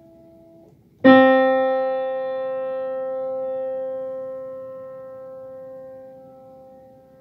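Piano playing a single note near middle C, struck about a second in and left to ring, slowly dying away over about six seconds. Just before it, the fading tail of a higher note stops.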